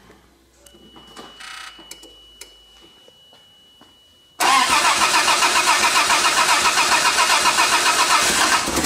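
Starter cranking the 1996 Land Cruiser's supercharged inline-six, beginning abruptly about halfway in with an even pulsing of about five beats a second, then stopping after about four seconds without the engine catching. The owner takes this for fuel not reaching the engine: the fuel filter needs priming again after the head gasket job.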